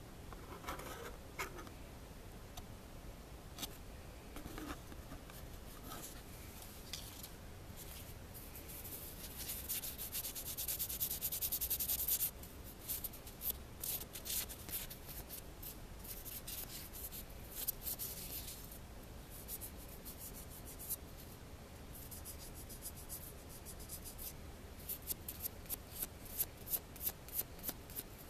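Polishing pad rubbed quickly back and forth over a copper wire ring, buffing the liver-of-sulfur darkening off its raised surfaces for an antiqued finish. The dry scratching builds to its loudest about halfway through, then turns to sharper strokes about two a second near the end.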